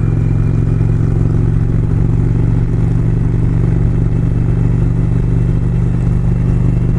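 2018 Indian Springfield's Thunder Stroke 111 V-twin running steadily at cruising speed, heard from the rider's seat, with road and wind noise over the engine.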